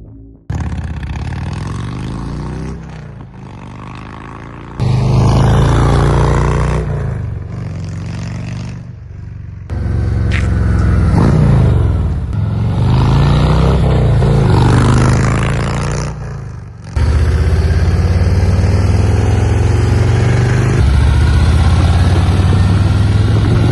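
Harley-Davidson Road Glide V-twin running through Forsch Performance Angry level 5 exhaust baffles while being ridden, with the engine note rising and falling as it accelerates and shifts. The note jumps abruptly a few times between stretches of riding.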